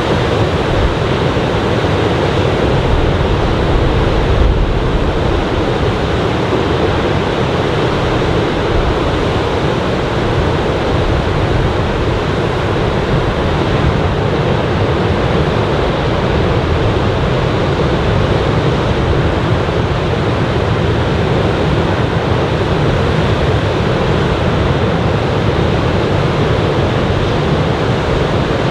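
Ocean surf from a typhoon swell breaking along the beach: a loud, steady wash of noise with no single wave crash standing out.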